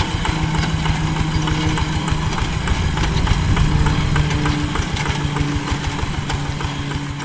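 Two-wheel hand tractor's single-cylinder diesel engine running steadily under load while pulling a plough through paddy mud, with an even, rapid chugging beat.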